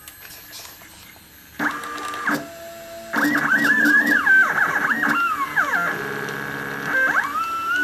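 Stepper motors of a homemade Solsylva 13x13 CNC, starting about a second and a half in, driving the axes as a pen traces a drawing. Their whine rises, falls and jumps in pitch as the axes speed up, slow and change direction, with a steadier stretch near the end. The axes are tuned to run smoother and quieter.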